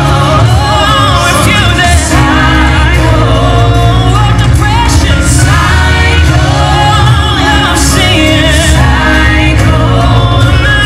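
Gospel song played over the hall speakers at full volume: sung vocals with a gliding melody over a heavy, steady bass line.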